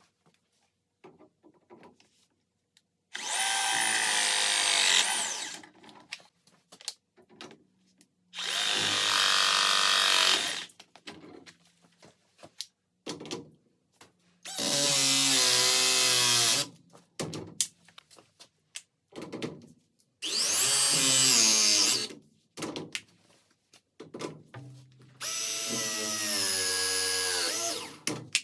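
Plumbing pipe press tool running five press cycles, each a motor whine of about two to three seconds whose pitch bends as the jaws close, with small handling clicks in the pauses between.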